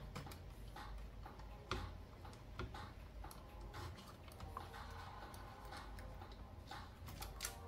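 Acer E5-572G laptop motherboard being worked loose from its plastic base chassis: scattered small clicks and taps of circuit board against plastic, a few louder ones, over a steady low hum.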